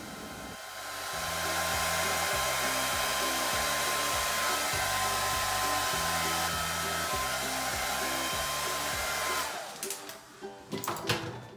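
Handheld hair dryer blowing, an even rush of air with a steady whine, switched off about nine and a half seconds in, followed by a few clicks and knocks as it is handled. Background music with a plucked bass line plays underneath.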